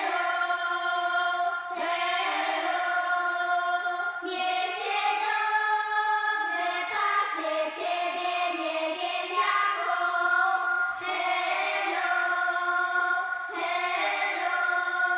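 A group of children singing a melody together in high voices, in phrases of a couple of seconds each.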